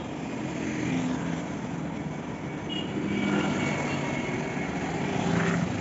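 Motorcycle running at a steady road speed, with wind rushing over the microphone and nearby traffic alongside.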